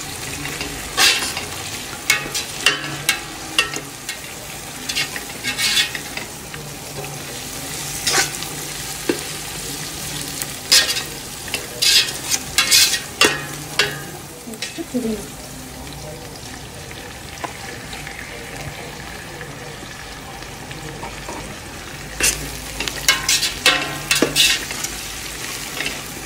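A steel spatula stirs and scrapes against the inside of a 15-litre steel cook pot while onions fried golden brown, with mint and coriander leaves, sizzle in oil. The scrapes come in quick runs for the first half, stop for several seconds, and start again near the end.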